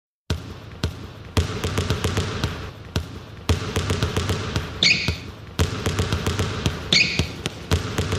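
Basketball bouncing in a loose rhythm, with two short sneaker squeaks, as the percussion opening of a pop song.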